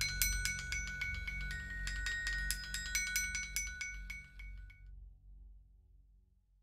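Small metal-bar glockenspiel struck rapidly with two thin wooden sticks: bright ringing notes repeating on a few pitches over a low steady hum. The notes die away about five seconds in.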